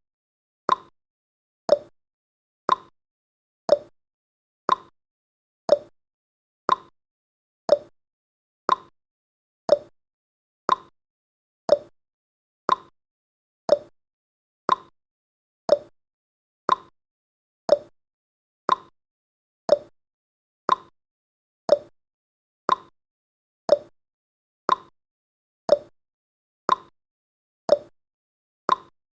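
Clock-ticking sound effect of a countdown timer: sharp ticks, one each second, in a steady tick-tock alternating between a higher and a lower tone.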